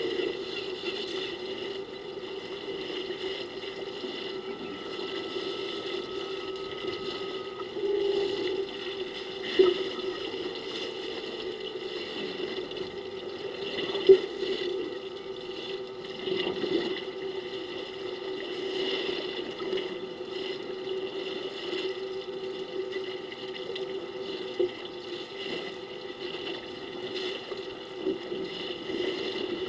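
African elephants drinking at a waterhole: water splashing and trickling as trunks dip in and spray, with a few short sharp splashes or knocks, over a steady low hum.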